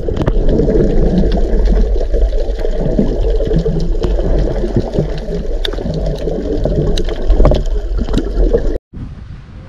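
Rushing, gurgling water sound effect under an animated logo intro, deep and dense with scattered clicks, cutting off suddenly near the end. After the cut, faint wind noise on the microphone.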